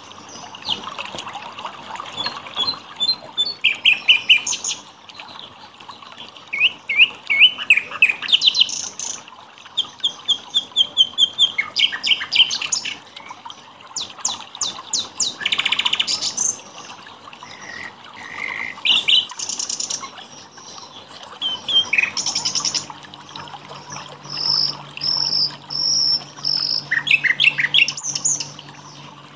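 Songbirds singing and chirping: a run of varied phrases of rapid repeated notes and trills with short pauses between them. A faint steady low hum comes in about two thirds of the way through.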